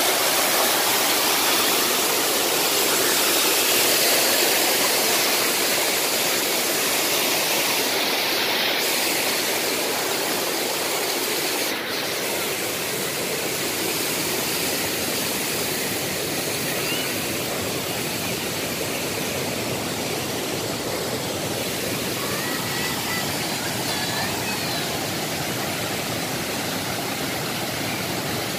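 Waterfall rushing and splashing over rocks into a pool in a steady roar of white water, a little softer from about twelve seconds in.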